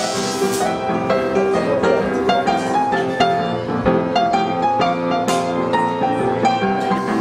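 Instrumental background music with piano, a steady run of melodic notes.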